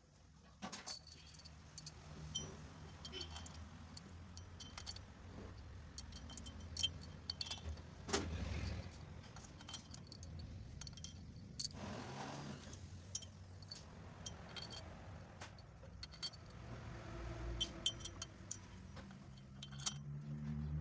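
Small metal objects clinking and jingling in scattered, irregular light strikes with a ringing edge, over a low motor vehicle rumble in the background that grows near the end.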